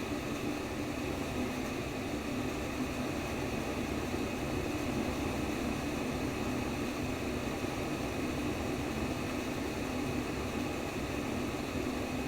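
Steady sleep white noise: an even, unchanging rush with most of its weight low down, like a fan or air conditioner running.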